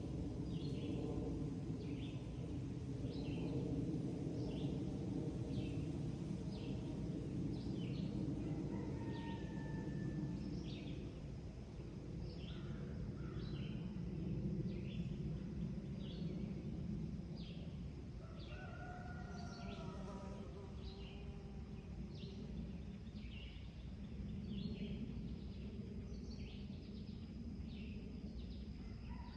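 Birds calling at daybreak on a farm. One bird repeats a short high chirp a little over once a second, and a few other birds give occasional gliding calls, over a steady low rumble.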